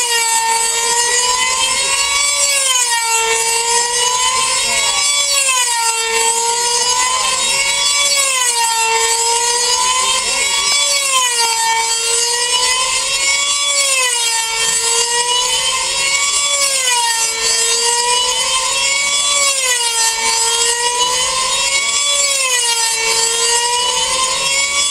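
F2A control-line speed model's 2.5 cc engine screaming at full throttle as the model laps the circle, a high buzzing whine with many overtones. Its pitch rises and falls once every lap, about every three seconds, as the model comes round toward and away from the listener.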